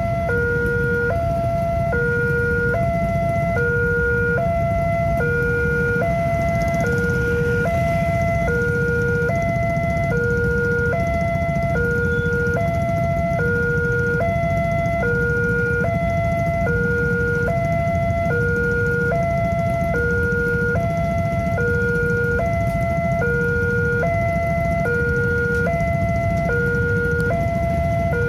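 Indonesian railway level-crossing alarm sounding continuously, a two-tone warning that alternates between a higher and a lower pitch about once a second, signalling that the gates are down for an approaching train. Beneath it is a low, steady rumble of waiting traffic.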